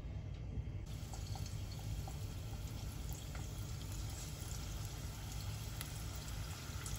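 Flour-coated chicken wings deep-frying in a pot of hot oil: steady sizzling and bubbling with scattered small pops, the hiss growing brighter about a second in.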